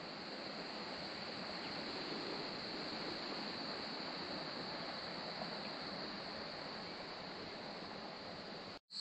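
A continuous high trilling of crickets over a steady outdoor rushing noise, cut off suddenly just before the end.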